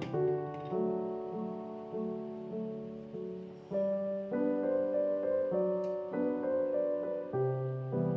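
Gentle solo piano background music: held notes and soft chords that change every second or so, getting a little louder about halfway through.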